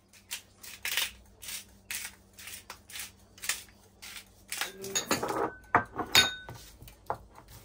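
Kitchen utensils and dishes being handled during food prep: a run of light clicks and taps, about two to three a second, then a busier clatter with a couple of short glassy clinks about five to six seconds in.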